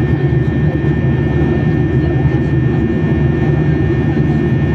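Steady low drone inside an airliner's passenger cabin in cruise flight: jet engines and rushing airflow, with a faint steady high whine above it.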